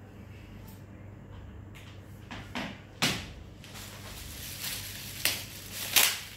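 Objects being handled: a few short knocks and clatters, the loudest about three seconds and six seconds in, over a steady low hum.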